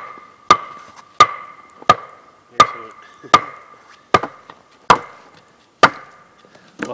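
A wooden stake being pounded into the ground with a short length of log used as a mallet: about ten sharp knocks, roughly three every two seconds and slowing a little, each with a brief hollow ringing tone.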